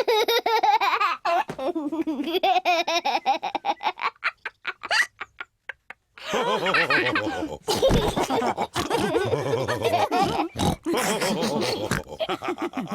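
Cartoon pig characters laughing: at first one or two voices in quick bursts, then after a short break about halfway through, several voices laughing together.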